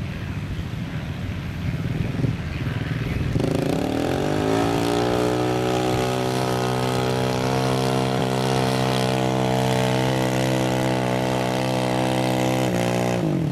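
ATV engine revving up about three seconds in, then held at high, steady revs under load as it drags a weight sled in first gear with two-wheel drive only. The revs dip briefly just before the end.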